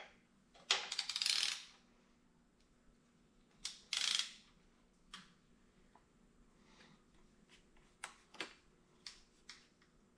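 Metallic clinks and rattles of a ratchet wrench on the belt tensioner as a serpentine belt is worked onto the pulleys of a GT350 Voodoo engine. Two short rattling bursts come about a second in and about four seconds in, followed by scattered single clicks.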